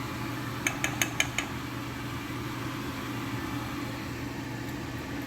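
Electric fan running with a steady hum, turned up to carry off dye fumes. About a second in, a quick run of five light clicks.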